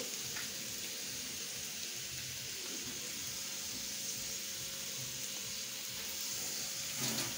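Potatoes frying in oil in a stovetop grill pan, a steady sizzle.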